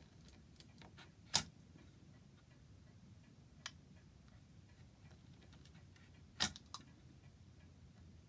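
A few sharp, irregular clicks and taps over a low hum: a loud one about a second in, a smaller one midway, and a close pair of loud ones later.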